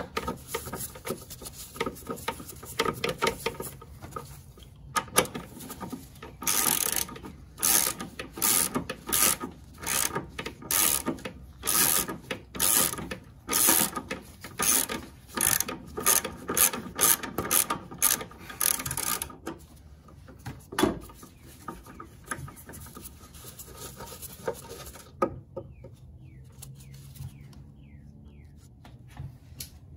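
Socket ratchet clicking in repeated strokes as the upper engine mount nuts are worked off. The strokes come in a quick, steady run of about two a second and stop about two-thirds of the way through.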